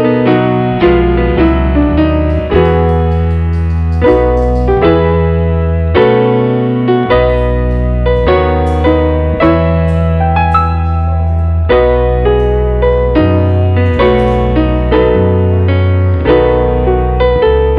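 Background piano music: chords struck over deep sustained bass notes, changing about once a second.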